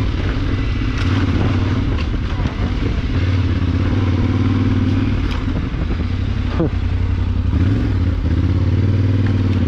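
Yamaha Ténéré 700 World Raid's parallel-twin engine running at low, fairly steady revs while riding a dirt trail, with a few knocks from the bike over the bumpy ground.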